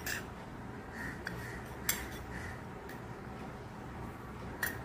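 A steel teaspoon clinking and scraping lightly against a stainless steel bowl and mixer-grinder jar while powder is spooned from one into the other: a few sharp clinks, the loudest about two seconds in.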